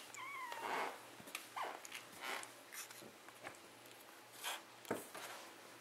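Nearly four-week-old kittens scuffling in a cardboard box: scattered scratchy scrapes and light taps of paws and claws on cardboard and bedding, with one short high mew right at the start.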